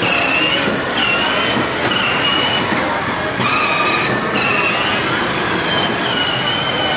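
Electric ride-on toy car driving: a high whine from its small motors and gearbox, cutting in and out every second or so, over a steady rumble of hard plastic wheels rolling on the ground.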